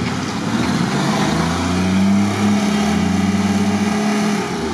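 Off-road 4x4's engine revving up about a second in and held at high, steady revs, then easing off near the end.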